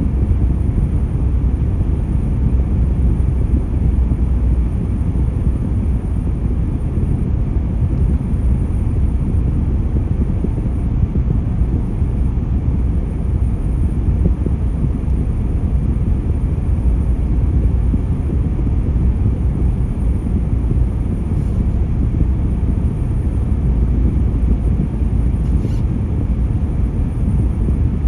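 Steady low rumble of tyre and engine noise inside a car cruising through a road tunnel, with no change in pace.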